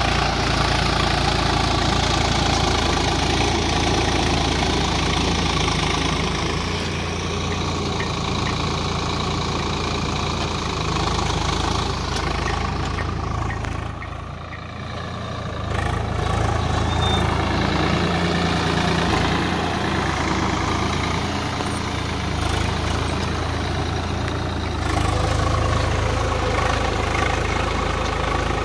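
Swaraj 744 XT tractor's three-cylinder diesel engine running steadily under load while pulling a three-bottom mouldboard plough through soil. The engine grows briefly fainter about halfway through, then comes back.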